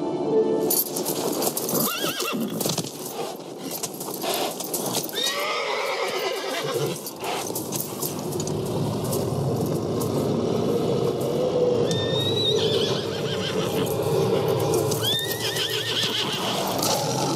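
A spooked horse neighing and whinnying several times, with hooves scuffling and stamping in the snow.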